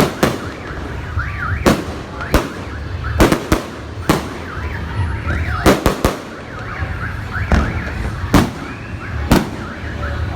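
Aerial fireworks bursting, about a dozen sharp bangs at uneven intervals, roughly one a second. Underneath runs a warbling tone that sweeps up and down a few times a second, over a steady low rumble.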